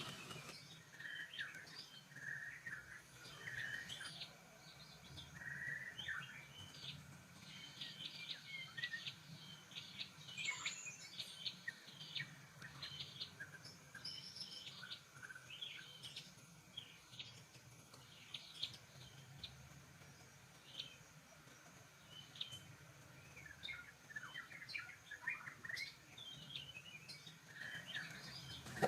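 Birds chirping faintly: many short, scattered chirps and calls.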